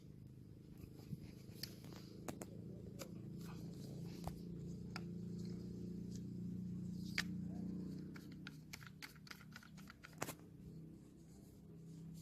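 Scattered light clicks and knocks of plastic pipe and compression couplings being handled and fitted, thickest near the end. Under them a low hum swells through the middle and fades.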